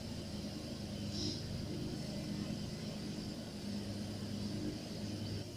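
A steady low engine hum, with a faint constant high-pitched insect drone over it.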